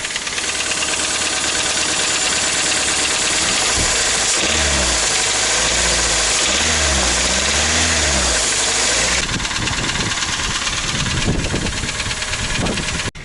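Toyota Rush's 3SZ-VE inline-four engine running with a knock from its pistons, which the mechanic takes for piston slap at the piston's change of direction from worn cylinders. The engine speed rises and falls twice in the middle.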